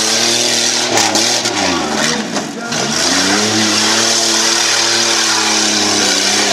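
SUV engine revving hard as it is driven through mud and over bumps, with knocks and splatter in the first few seconds; the revs dip about two and a half seconds in, then climb and hold high.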